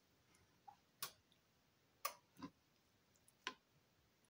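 A few faint, irregular clicks and light taps, about five in all: the hard shell of a raw lobster tail knocking against a cutting board as it is picked up and turned over.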